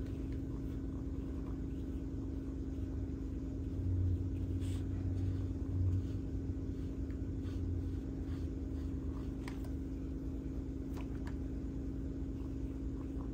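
A steady low rumble with a hum, swelling for a few seconds in the middle, and faint light taps of a paintbrush on paper.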